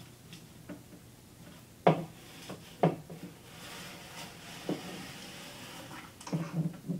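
Cutting board scraping through crushed coral gravel inside a glass aquarium, with a soft gritty hiss of shifting gravel. A few knocks of the board against the tank, two sharp ones about two and three seconds in.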